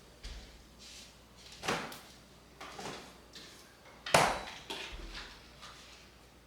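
A few knocks and clunks from kitchen items being handled, like a drawer or cupboard door, the loudest about four seconds in.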